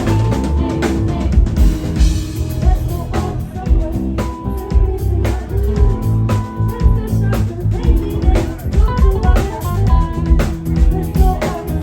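Live band music with guitar and drum kit playing a steady beat, without sung lyrics.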